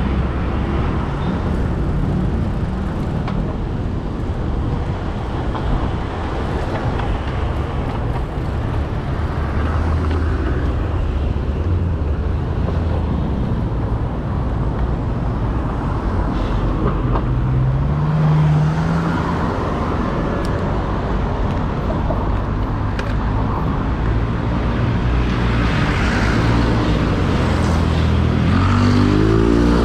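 Road traffic: vehicle engines running and passing close by, with a steady rumble. An engine's pitch rises briefly about two-thirds through, and another engine speeds up near the end.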